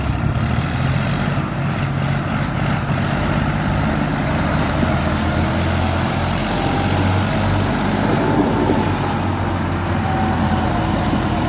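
Diesel engines of Massey Ferguson tractors running hard under load, hauling a heavy trailer, with black exhaust smoke showing the strain. The steady engine note drops lower about four seconds in.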